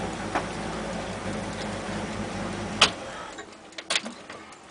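Port inboard engine of a 28-foot Tollycraft running steadily, then shutting off: a sharp loud click about three seconds in, and the engine's drone dies away. A couple more switch clicks at the helm panel follow about a second later.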